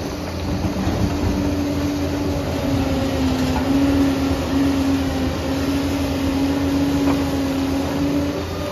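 Liebherr 746 crawler dozer's diesel engine running steadily as it works, a low rumble with a steady whine over it.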